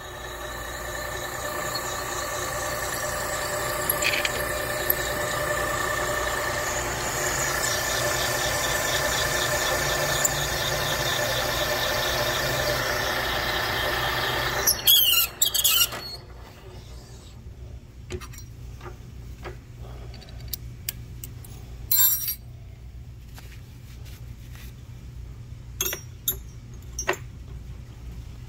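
A cutting tool turning in a valve guide bore of a cast-iron Mopar 360 cylinder head on a machine spindle: a steady high-pitched whine of several tones over the machine's hum, which stops abruptly about fifteen seconds in. After that come scattered clicks and knocks of handling.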